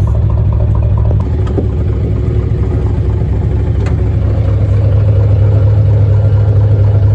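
Yamaha DW-24 fishing boat's inboard engine idling with a steady low hum, getting a little louder about five seconds in.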